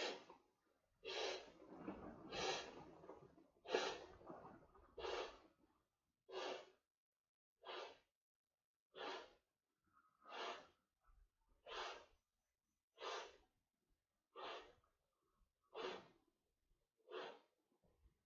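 A person breathing hard while blowing up an inflatable vinyl raft by mouth: about fourteen short breaths, roughly one every 1.3 seconds, heavier for the first few.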